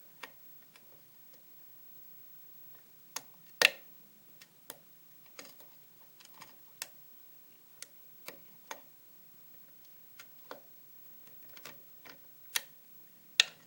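Irregular small, sharp metallic clicks and ticks from a lock pick and tension wrench working the pin stack of a challenge lock: pins clicking as they set or drop, with a few louder clicks standing out.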